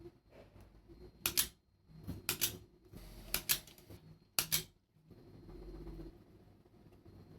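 Sharp double clicks, four of them about a second apart, from hard parts knocking or snapping together as a 3D-printed prototype is assembled by hand.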